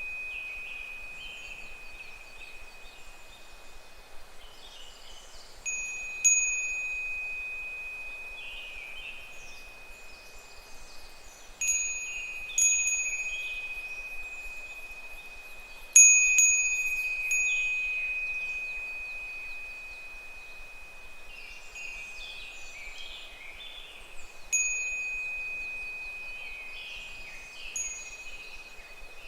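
A Japanese wind bell (fūrin) rung by the breeze every few seconds, often twice in quick succession, each strike a clear high ring that dies away slowly. Higurashi cicadas call faintly behind it.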